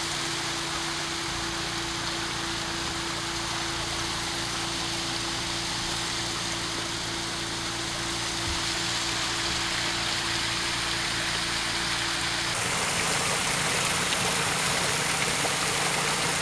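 Steady rushing of water from a garden waterfall cascading over rocks, an even noise that shifts in tone about three-quarters of the way through.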